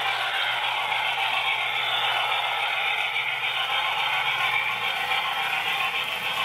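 OO gauge Wrenn model locomotive running around a loop of track: a steady rattle and whir of the motor and wheels on the rails.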